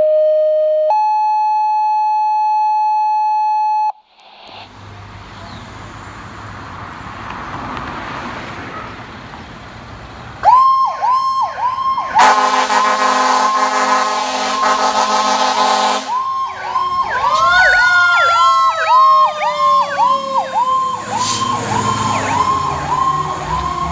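Two steady paging tones, a short one and then a longer, higher one, then street traffic. From about halfway in, a fire engine's siren yelps rapidly, and a loud air horn blasts for about four seconds. After the horn, another siren tone slides slowly down in pitch while the yelp keeps going.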